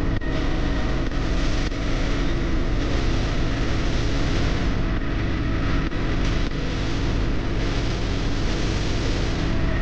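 A steady, loud mechanical rumble with a high, steady whine over it, from an engine or vehicle running.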